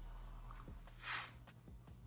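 Quiet room tone with a steady low hum and a few faint ticks; one short breathy rush of noise about a second in.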